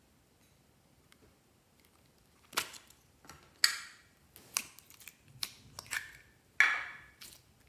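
Glossy slime being squeezed and folded by hand, giving a series of sharp, wet pops and clicks, about six in the second half.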